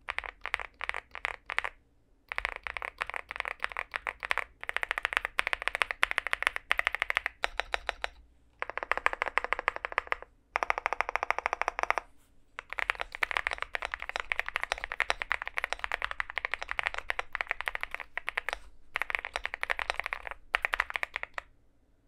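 Fast typing on a Leobog Hi75 aluminium gasket-mount mechanical keyboard fitted with Vertex V1 switches: dense runs of crisp, poppy keystrokes that sound like bubble wrap. The runs come in bursts a few seconds long, with brief pauses between them.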